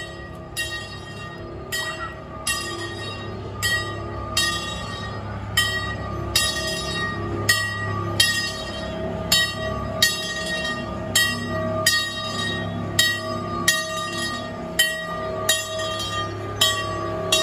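Train bell ringing steadily, about one stroke a second, each stroke ringing on into the next.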